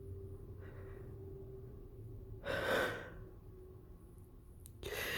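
A man's sharp gasping inhalations as a sneeze builds: a faint breath about a second in, a louder gasp near the middle, and another starting near the end.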